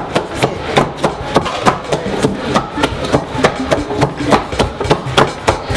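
Four long wooden pestles striking in turn into a large wooden mortar of boiled yam, pounding it into fufu: a steady run of dull wooden thumps, about two to three a second.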